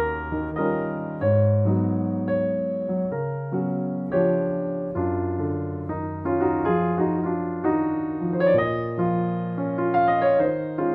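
Solo piano music, each note struck and then fading, over held low bass notes.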